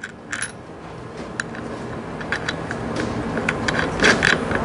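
Scattered light clicks and crinkling of a small bolt kit being opened and its nut and washer handled, busiest near the end, over a steady background rush that grows louder.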